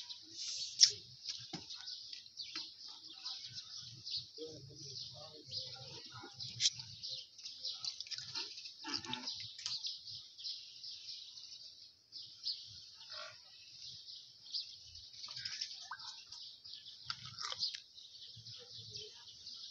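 Small birds chirping continuously in a busy chatter, with faint low sounds now and then underneath.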